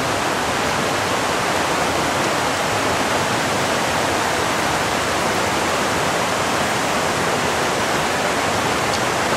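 Mountain stream rushing over rocks through white-water rapids: a loud, steady, even rush of water.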